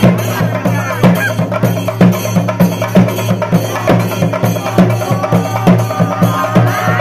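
Kerala temple drums (chenda) beaten with sticks in a fast, loud rhythm, with a strong stroke about once a second and quicker strokes between. Under it runs a steady low drone, with some wavering higher tones above.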